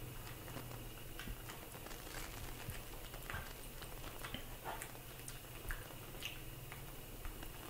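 Soft scattered clicks and handling noises as a baby macaque pats newborn puppies on a cushion, with a few brief high squeaks in the second half, over a steady low room hum.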